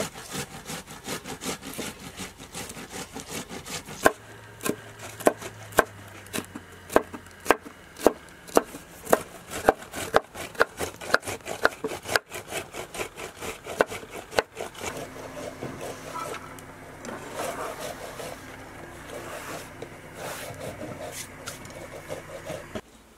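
Ripe tomatoes rubbed against a stainless-steel box grater over a steel bowl: rhythmic rasping strokes, fast at first, then settling to about two sharp strokes a second. About fifteen seconds in the strokes stop and a softer, continuous scraping and rustling takes over.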